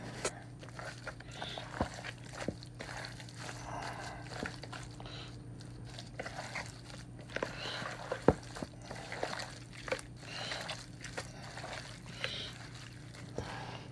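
Kitchen handling sounds during cooking: scattered clicks and knocks of utensils and dishware, one sharper knock about eight seconds in, over a steady low hum.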